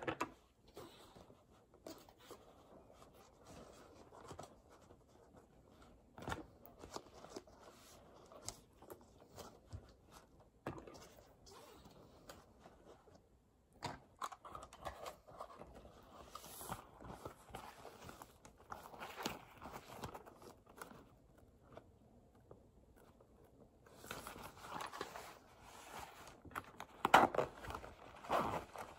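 Hands sorting plastic pens inside a canvas pencil case: scattered light clicks and taps of pens against each other, with fabric rustling. The handling gets louder near the end as the case is moved.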